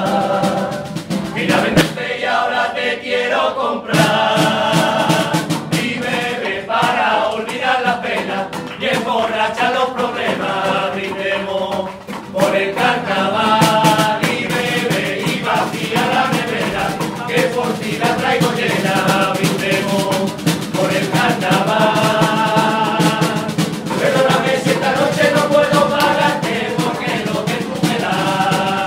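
A Cádiz-style carnival chirigota singing in chorus, backed by strummed acoustic guitar and a snare drum beating time.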